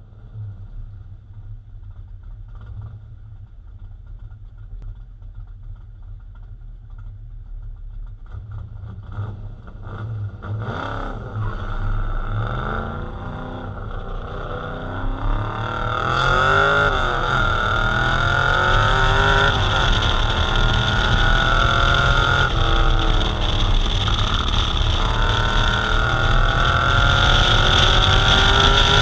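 Race-prepared 1963 Chevy Nova SS with a Borla exhaust accelerating hard up a hill-climb course. The engine runs low and quiet at first, then about ten seconds in its revs start climbing and dropping again and again. It gets much louder around the middle and stays loud.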